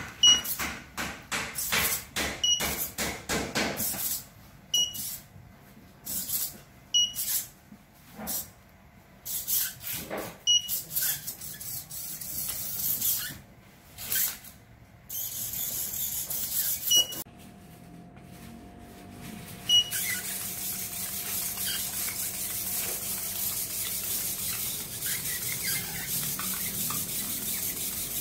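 Hobby servo motors of an Arduino quadruped spider robot whirring in short bursts as it steps, its legs clicking and tapping on a tile floor. Brief high beeps recur every couple of seconds, and about two-thirds of the way through a steady hiss takes over.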